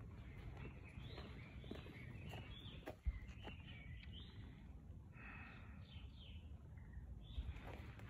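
Small birds chirping in the trees, short calls that slide in pitch, coming and going, over a steady low rumble. A single sharp thump about three seconds in.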